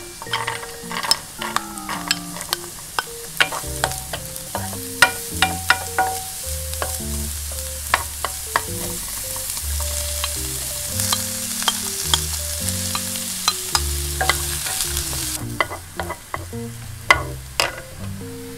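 Diced carrot, shallot and sausage sizzling in oil in a nonstick frying pan, stirred with a wooden spoon that clicks and scrapes against the pan many times. The sizzling grows louder about halfway through and drops back suddenly a few seconds before the end.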